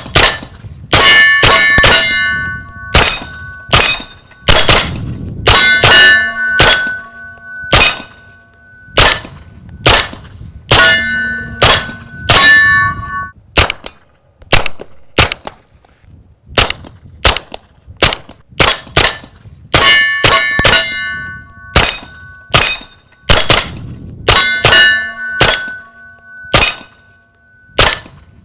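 Strings of rapid suppressed 9mm shots from a Noveske Space Invader wearing a Rugged Obsidian 9 suppressor in its long configuration. Many hits set steel targets ringing with a clear metallic ring, and there are short pauses between the strings.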